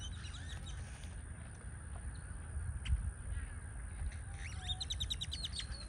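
Grackle calling: whistled notes sliding up and down at first, then a fast run of about ten clicking notes about four and a half seconds in.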